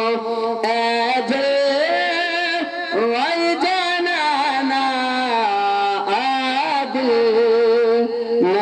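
A solo man's voice in melodic devotional recitation into a microphone, holding long notes with ornamental wavers and glides that rise and fall, pausing briefly for breath.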